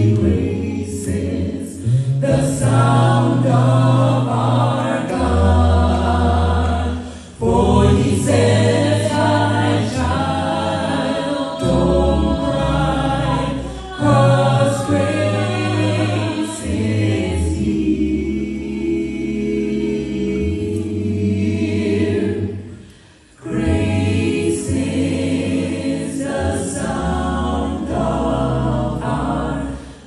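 A cappella vocal group of mixed men's and women's voices singing a gospel song into handheld microphones, a deep bass voice stepping through the low line under close harmonies. The singing breaks off briefly about 7 seconds and again about 23 seconds in.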